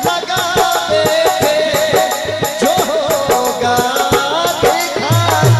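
Hindi song music: a melody with sliding, bending notes over steady percussion, with a heavy bass beat coming in near the end.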